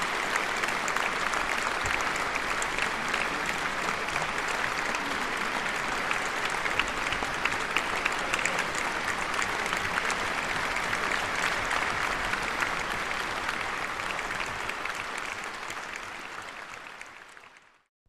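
Concert-hall audience applauding steadily, a dense patter of many hands, fading out over the last few seconds.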